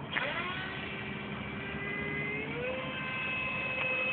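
Radio-controlled model jet's motor whining overhead. The whine drops sharply in pitch right at the start, holds steady, then rises again a little past halfway as the throttle changes.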